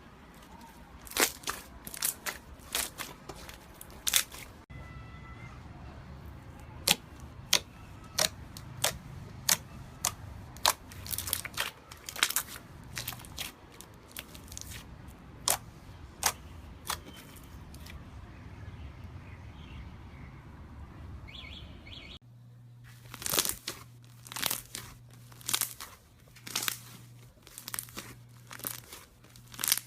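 Slime being worked by hand, giving irregular sharp pops and crackles, about one or two a second. The background changes abruptly twice, and a low hum runs under the last part.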